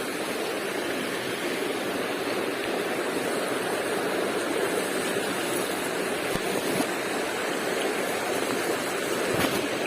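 River water rushing, a steady noise without breaks.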